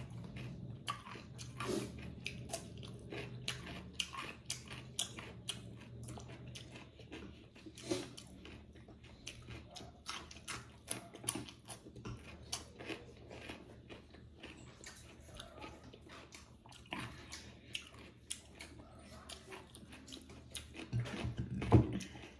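A person chewing and biting into buffalo momos in soup close to the microphone, with many small irregular clicks and smacks. A louder thump comes near the end.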